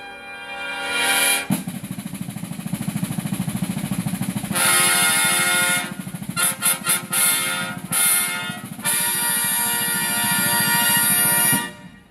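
Herald trumpet ensemble with field drums playing a fanfare. A held brass chord gives way about a second and a half in to a snare drum roll. Brass entries and short chords come over the roll, and it ends on a long final chord that cuts off near the end.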